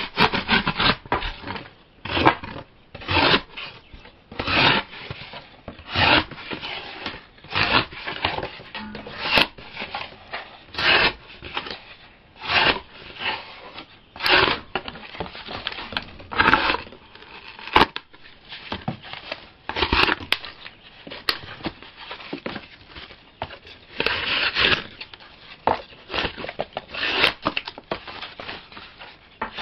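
Spear blade drawn in repeated rasping strokes, roughly one a second, each a short scrape, with one sharp click about two-thirds of the way through.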